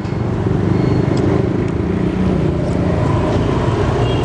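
A motor vehicle engine running close by: a steady, low rumble.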